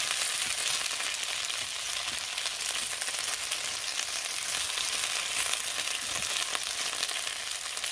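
Diced taro and pork rib pieces sizzling steadily in hot oil in an iron wok, with a spatula stirring and turning them, making faint scrapes and clicks against the pan.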